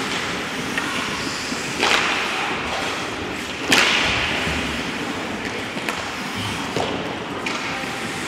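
Ice hockey play: skate blades scraping and carving on the ice, broken by sharp cracks of stick and puck impacts. The loudest cracks come about two and about four seconds in, the second followed by a brief spell of hiss.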